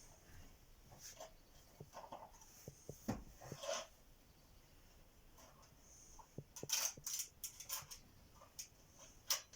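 Scattered clicks, knocks and rustling from a vacuum cleaner being handled and adjusted while its motor is off, with a quick run of sharper clicks about two-thirds of the way through and one more near the end.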